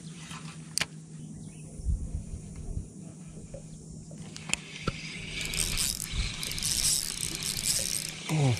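Spinning reel being worked on a rod: a few light clicks and a soft, hissy whirring as line is retrieved, over a steady low hum.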